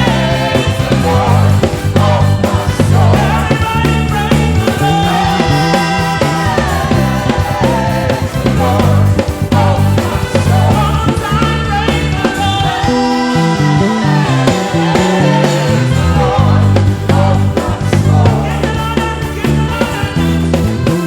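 Contemporary gospel praise music: sung vocals over a band with a steady beat and a moving bass line.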